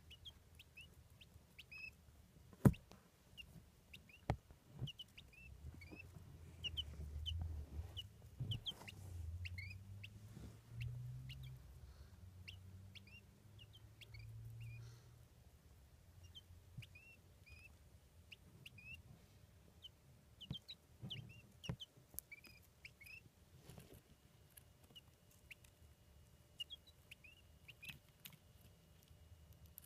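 Newly hatched quail chicks peeping, with short high chirps every second or so throughout. Scattered sharp taps and knocks, the loudest about 3 s in, and a low rumbling between about 6 and 15 s.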